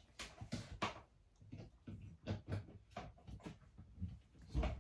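Faint, irregular clicks and light knocks of power plugs and cords being handled under a desk, with a louder knock near the end.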